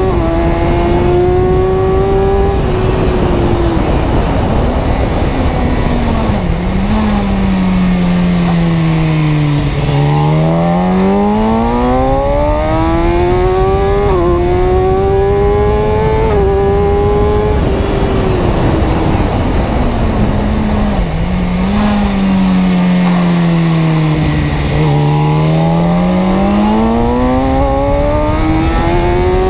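Car engine pulling through the gears: its pitch climbs in steps and drops back sharply at each upshift, then sinks steadily as the car slows. The climb and slow-down happen twice.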